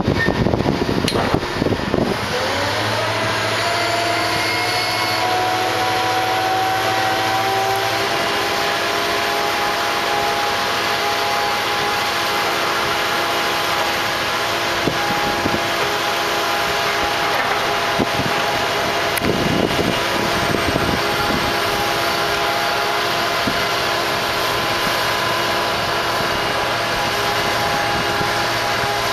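A crane's drive motors running, heard from up on the crane as it turns. About two seconds in, a whine rises in pitch and then holds steady, with a lower hum underneath for the next few seconds.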